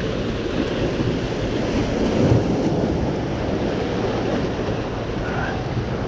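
Sea waves breaking and washing over shoreline boulders, a steady rushing surf, with wind buffeting the microphone.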